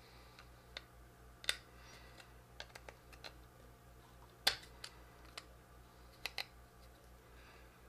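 Scattered small clicks of a flat-blade screwdriver prying the interface adapter off a 2.5-inch laptop hard drive's connector pins, the sharpest about a second and a half in and again halfway through.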